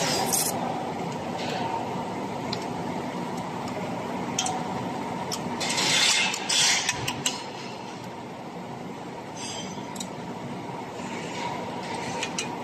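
Steady hum of workshop machinery around a spiral duct forming machine, with scattered metallic clinks and a cluster of louder sheet-metal clanks about six to seven seconds in.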